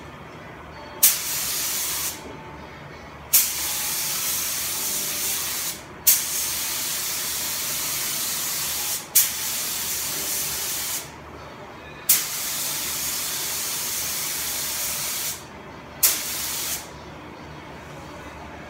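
Compressed-air paint spray gun hissing in six bursts of about one to three seconds each. Each burst opens with a brief louder blast as the trigger is pulled.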